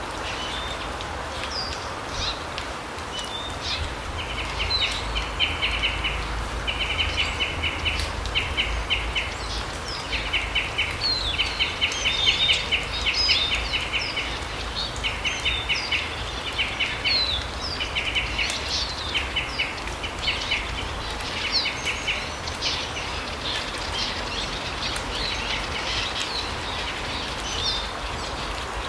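Small birds calling in a larch forest: many short, rapid trills and high chirps repeating throughout, over a steady background hiss and low rumble.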